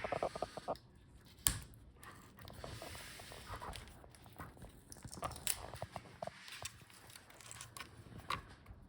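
Hands working at a laptop LCD panel and its video cable connector: scattered light clicks and taps with a sharper click about a second and a half in, and a soft rustle or crinkle a little later.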